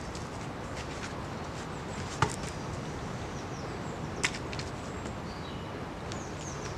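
Two sharp knocks of wood on wood, about two seconds apart with the first the louder, as logs are handled on a stacked-log fire reflector wall. Small birds chirp faintly near the end over a steady outdoor hiss.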